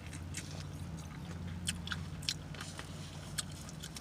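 A person chewing a mouthful of Italian cold cut sandwich close to the microphone, with wet mouth smacks heard as short sharp clicks every fraction of a second. A steady low hum runs underneath.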